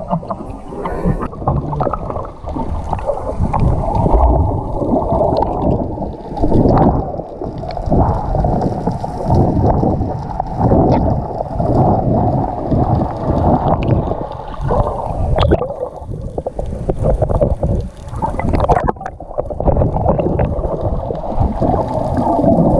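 Muffled water sloshing and gurgling around a camera held underwater by a swimming snorkeler, with irregular knocks and bumps from the water and handling.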